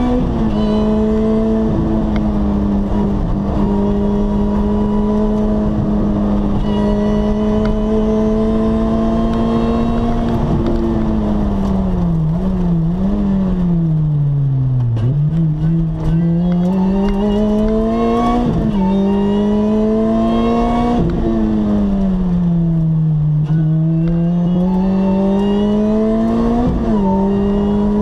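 Lotus Exige S engine heard from inside the cabin while driving. It holds a steady pitch at cruise, drops as the car slows about halfway through, then climbs through a couple of upshifts. Near the end it falls once more and rises again.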